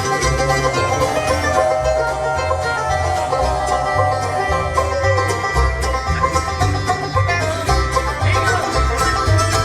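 Bluegrass band playing live, an instrumental break with the banjo prominent over guitar and low bass notes on the beat.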